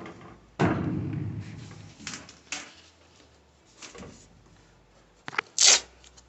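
Clatter and knocks of hand tools and parts being handled: a long rattle about half a second in, a few light taps, and one sharp knock near the end.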